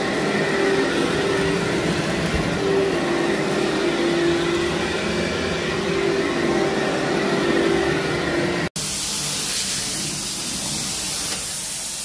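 Upright vacuum cleaner running steadily, a motor hum with a held whine. About two-thirds of the way through it cuts off abruptly, and a steady, hissier noise follows.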